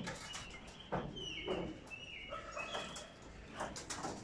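Birds calling around a rooftop pigeon loft: pigeon sounds with short high chirps and a few sharp clicks.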